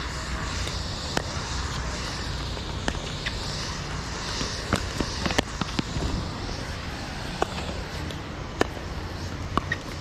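Pickleball paddles hitting a plastic ball: a string of sharp pops at irregular intervals, about a dozen in all, over steady background noise.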